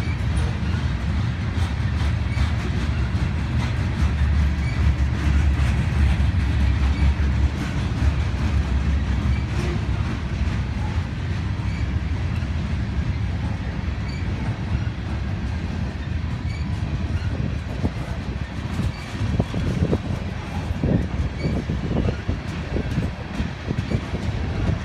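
Rock-loaded freight cars of a CSX train rolling past: a steady heavy rumble of steel wheels on rail. In the second half, sharper clicks and knocks of wheels over rail joints come through more clearly.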